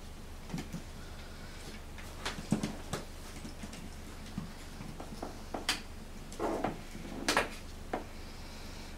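Small mittelspitz puppies scrabbling about on a hard floor: scattered light knocks, scuffs and claw clicks, busier in the second half, with a louder cluster a little after the middle.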